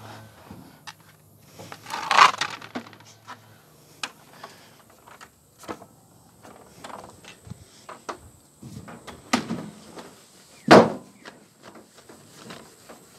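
Clothes being stuffed into the drum of a front-loading tumble dryer: fabric rustling with irregular knocks against the drum and door, and two louder thumps, about two seconds in and near the end.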